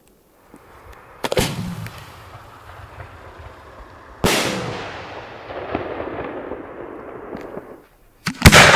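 Homemade aerial firework shells going off: a loud bang about a second in, a sharper one around four seconds in that fades out slowly, and two bangs close together near the end. A hiss fills the gaps between them.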